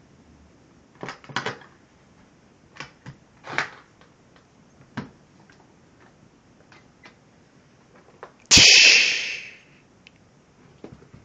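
Aluminium briefcase being opened by hand: a series of clicks and knocks from its metal latches and handling, then, near the end, a loud sudden noisy rush lasting about a second and fading out as the lid is lifted.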